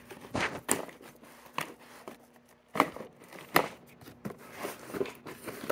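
Irregular rustles and sharp clacks of a fabric tool pouch and its plastic clip hardware being handled, about a dozen separate knocks with the loudest a little under a second apart near the middle.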